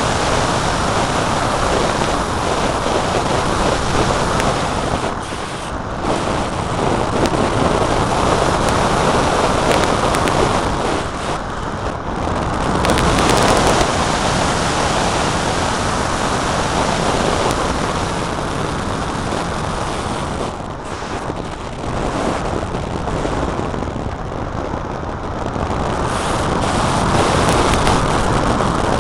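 Wind noise from the airflow buffeting the microphone of a small camera carried on an unpowered EPP foam flying-wing glider as it slope soars: a loud, steady rush that swells and eases, dipping briefly several times.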